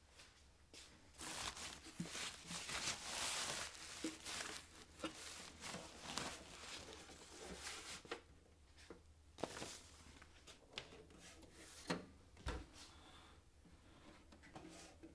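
Plastic packing wrap rustling and crinkling as a boxed cassette deck is pulled out of it, with scattered small knocks and one dull thump about three-quarters of the way through.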